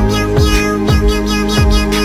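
Background electronic music with a held bass note and a deep kick drum dropping in pitch several times, with high gliding tones above it.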